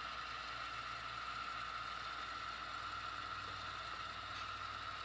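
HO scale model freight train running past at a steady speed: a faint, even mechanical hum with a steady high whine.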